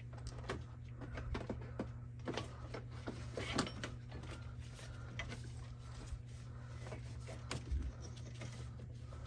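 Rubber drive belt being worked off the engine's pulleys by hand: scattered light clicks and rubbing sounds over a steady low hum.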